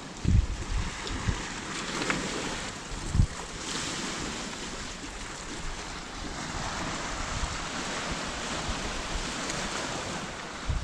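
Sea surf washing on a shingle beach as a steady hiss, with wind buffeting the microphone in a few low thumps near the start and about three seconds in.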